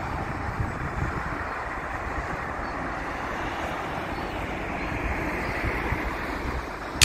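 Steady road traffic noise from a highway, a continuous rush of passing cars with no single vehicle standing out.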